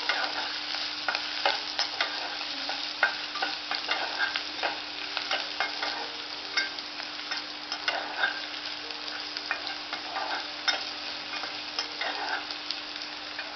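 Crushed garlic and spices frying in a little hot oil in a pan, with a steady sizzle. A spatula stirs through it, giving frequent clicks and scrapes against the pan.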